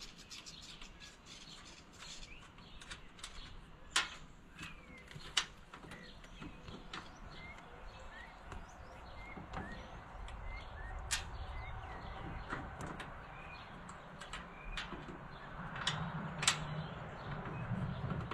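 Scattered sharp clicks and knocks of hand tools and metal parts as a garden tractor seat is unbolted, the loudest about 4, 5, 11 and 16 seconds in, with small birds chirping.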